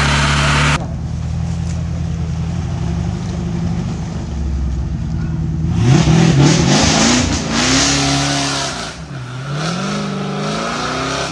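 Off-road 4x4's engine running steadily at low revs, then revving up and down several times from about six seconds in, with a rush of noise as it pulls.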